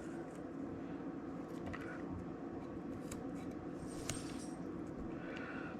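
A few soft clicks of ginger root being cut, over a steady low room hum.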